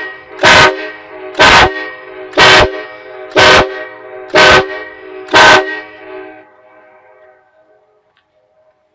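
Nathan Airchime K5LA five-chime train horn, fed from a 7-gallon air tank, sounding short loud blasts about once a second as the car alarm's panic mode pulses it. Six blasts, then it stops about six seconds in and the chord fades away.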